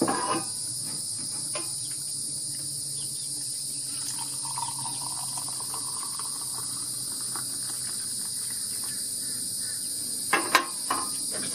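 Steady outdoor insect chorus, a continuous high-pitched drone, with a few faint clicks and a brief louder sound near the end.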